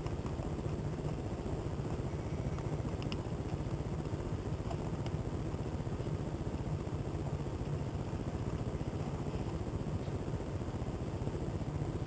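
A steady low rumble of background machinery, with a few faint small metallic clicks about three and five seconds in as the flint spring screw is turned into a Zippo lighter's insert.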